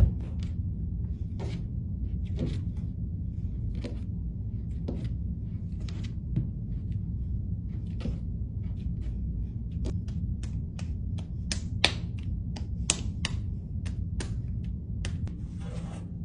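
Wet clay slapped between the hands and pressed onto a wooden worktable by hand, making irregular soft slaps and sharp taps that come several a second in places, most densely in the second half, over a steady low room hum.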